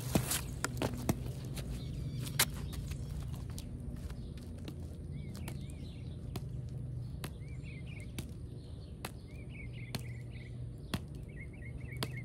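A small bird chirping in short repeated arched notes from about five seconds in, over a steady low hum. Scattered sharp clicks and taps, loudest in the first few seconds while the boy is still close to the phone.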